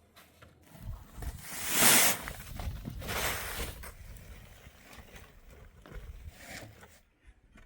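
Wind gusting across the microphone in a snowstorm, two strong gusts about two and three and a half seconds in over a low rumble.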